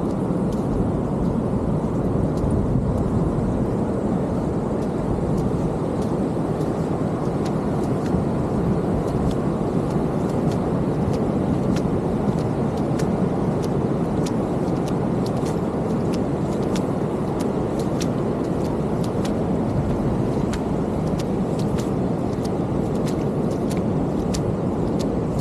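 Ocean surf: a steady roar of breaking waves with no swell or lull. Many faint, crisp clicks are scattered over it, more of them in the second half.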